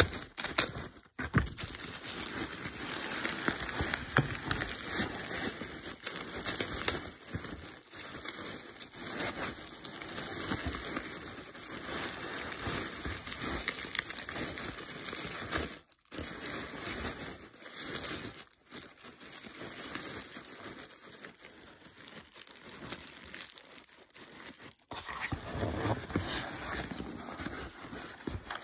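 Hands rummaging through plastic bubble wrap and foam packing peanuts in a cardboard parcel: continuous crinkling and rustling, with a few short breaks.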